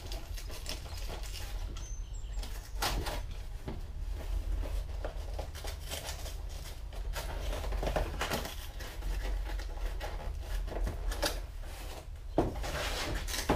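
Cardboard shipping box being opened and its packaging handled: repeated rustling, scraping and flapping of cardboard, with a sharp knock near the end. A steady low hum runs underneath.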